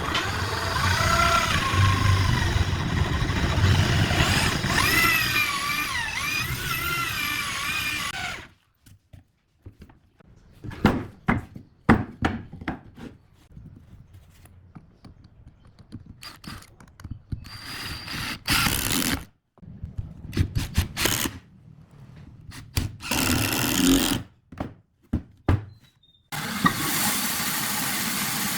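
Power tool running on wood, its pitch wavering under load for about eight seconds before it stops. Short bursts and knocks follow, and a tool runs steadily again near the end.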